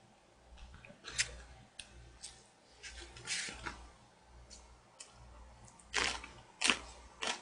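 Close-up eating sounds: light clicks of chopsticks against a bowl and chewing, a short rustle around the middle, then three sharp crunches from bites into a raw green cucumber chili pepper (oi-gochu) near the end.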